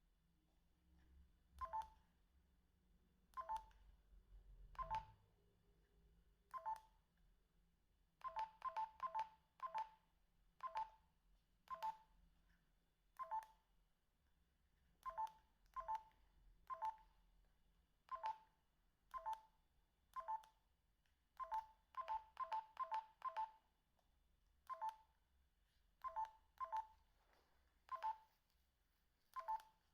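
Binatone BB200 mobile phone's keypad beeping as its buttons are pressed to step through the menus. Each beep is short and at the same pitch. They come at irregular intervals, some singly and some in quick runs of three or four.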